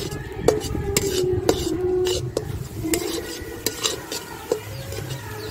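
Steel spatula stirring and scraping scrambled eggs around a metal kadai, with sharp clinks of metal on metal about once a second and the eggs sizzling over the fire.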